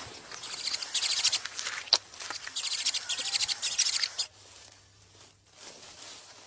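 Cuckoo nestling begging with rapid, high-pitched chirps in bursts that stop about four seconds in.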